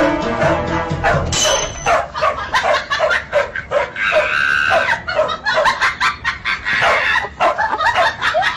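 A dog barking in a fast run of short, high yaps, about three a second. Music plays under the first second or so, then stops.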